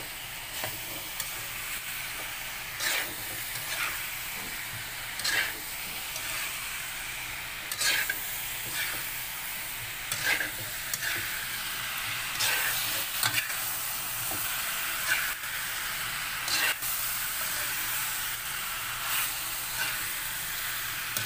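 Pork pieces sizzling in a sauce being cooked down in a coated frying pan, with a spatula scraping and stirring through them every second or two.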